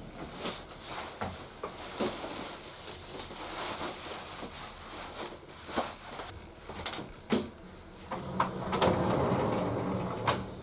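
Scattered clicks and knocks, like doors or objects being handled, with one sharp click about seven seconds in and a stretch of rustling near the end.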